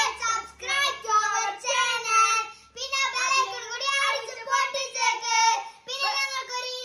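Children singing with high, bright voices, the notes held and sliding, with brief breaks between phrases.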